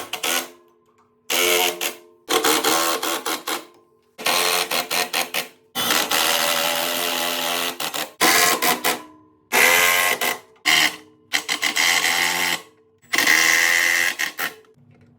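Cordless power drill or driver run in about seven short bursts with short pauses between, driving screws to fit casters under a welder.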